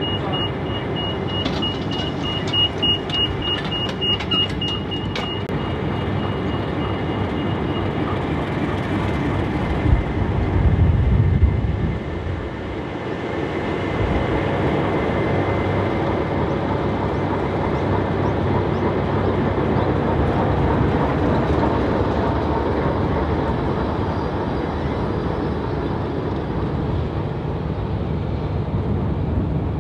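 Diesel locomotive engines running steadily, a continuous low rumble. A thin high steady tone sounds over the first several seconds, and the rumble swells louder about ten seconds in.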